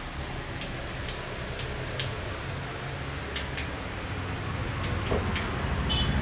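Several short, sharp clicks at irregular intervals over a steady low hum.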